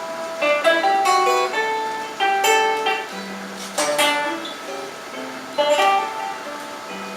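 A guitar playing an instrumental passage between sung lines: plucked and strummed chords, each struck note ringing out and fading before the next.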